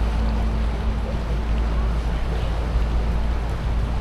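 Wind buffeting the microphone over a steady low rumble, with no distinct events such as a horn blast.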